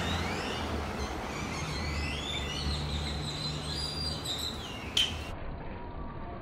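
Birds chirping over the low hum of a vehicle that fades away, with one sharp knock about five seconds in.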